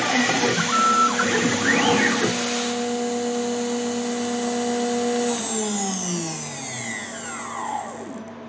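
High-speed CNC spindle with a 6 mm four-flute end mill, running at about 15,000 rpm. For the first couple of seconds it cuts a trochoidal pocket in aluminium, with the axis motors whining up and down in pitch as the tool moves. Then its whine holds steady for a few seconds before falling away in pitch from about five seconds in as the spindle winds down.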